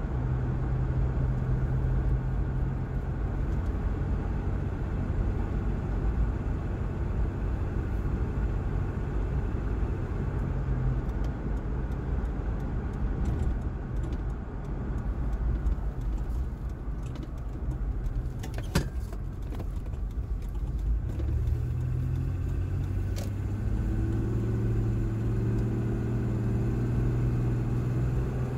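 Cabin noise of a 1995 Nissan Pathfinder WD21 on the road: its 3.0-litre V6 runs under a steady low drone of engine and tyre noise, with the engine running fine on a new timing belt. The engine note drops in the middle and climbs again in the last third as the truck picks up speed. A single sharp click comes about two-thirds of the way through.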